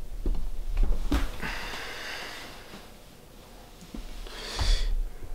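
A person with a cold sniffing and breathing hard through the nose close to the microphone, with a few light knocks from the phone and its small tripod being set up and handled on a countertop.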